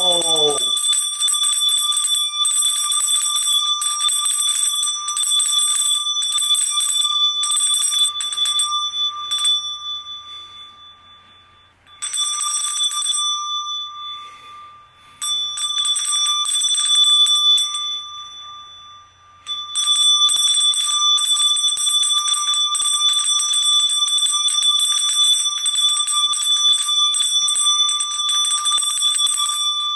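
Handbell shaken rapidly and continuously, ringing with a clear high tone. It stops three times in the middle to ring out and die away before the shaking starts again.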